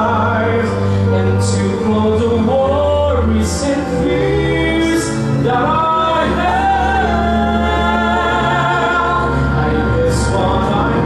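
Two male voices singing together live into microphones, holding long notes over an accompaniment of steady, sustained low notes.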